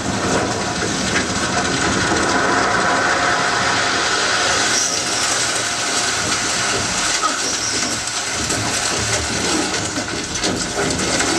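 Movie sound effects: a loud, dense, continuous rush of noise with hiss and low rumble, with no clear single event.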